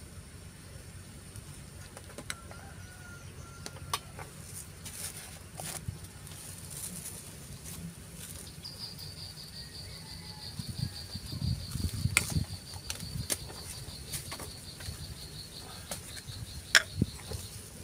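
A metal spoon clinking and tapping against glass seasoning bottles and a stainless steel bowl, in scattered sharp clicks, the loudest near the end. From about halfway a steady, finely pulsing high trill runs alongside.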